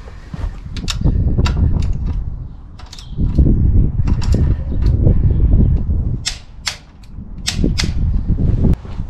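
Torque wrench tightening the bolts of steel motorcycle crash bars: irregular sharp metallic clicks, several a second in stretches, over loud low rumbling noise that comes and goes three times.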